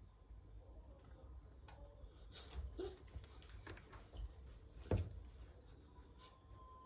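A few light clicks and knocks from something being handled, the loudest about five seconds in, with a faint steady tone coming in near the end.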